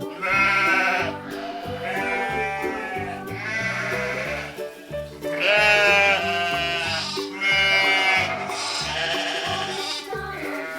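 Upbeat children's background music with a repeated wavering, bleat-like voice: notes about a second long over a steady rhythmic backing.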